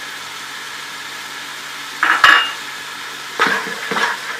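Chicken and vegetables sizzling in a frying pan, then a utensil clattering and scraping against the pan as they are stirred. The loudest knock, with a short metallic ring, comes about two seconds in, and more scrapes follow near the end.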